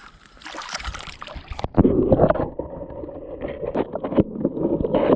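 Water splashing and sloshing close to the microphone, with knocks and rubbing. It turns loud and busy a little under two seconds in.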